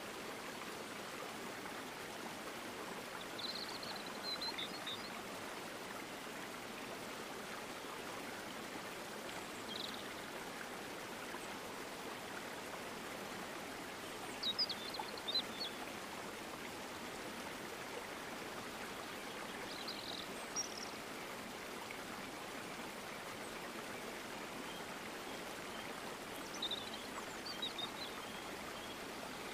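A steady rushing noise like running water, with short high bird-like chirps five times.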